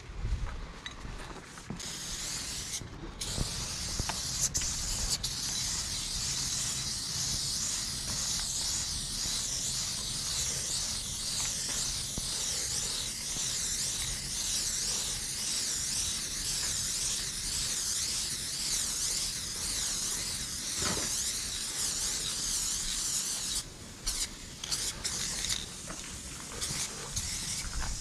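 Aerosol spray-paint can hissing as a graffiti throw-up is painted on a wall, in one long, nearly unbroken spray with a few short spurts near the start and again near the end.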